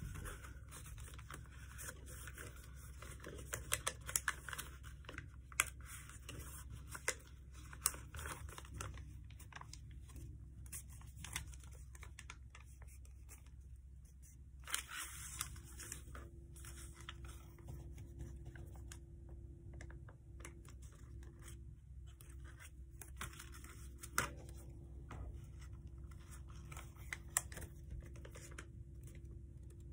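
A sheet of paper being unfolded and reverse-folded by hand: scattered crinkles, rustles and sharp crease clicks over a low steady hum.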